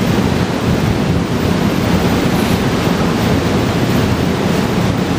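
Loud, steady rushing noise with no speech in it, like wind or hiss on the microphone.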